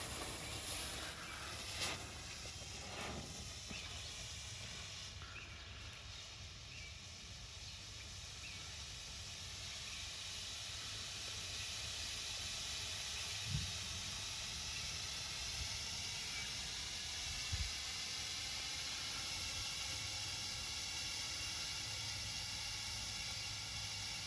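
Pyro High smoke sticks burning with a steady hiss, and two brief low thumps partway through.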